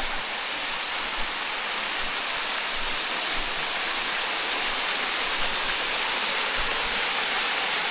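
Steady rush of a shallow creek's water pouring over a waterfall, an even hiss with no breaks.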